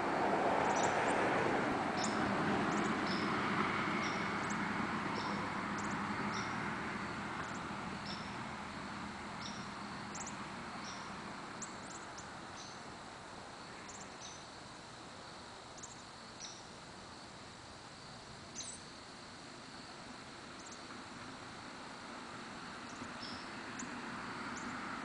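Outdoor background noise, loudest in the first few seconds and then fading, with short high chirps repeating irregularly about once a second.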